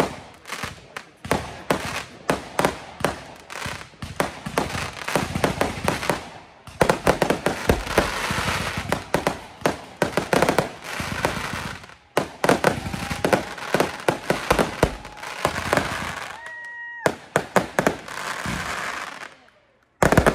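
Consumer fireworks going off in rapid volleys: dense crackling and popping with bangs, broken by two short lulls. A brief whistling tone sounds about three-quarters of the way through, and a loud bang comes just before the end.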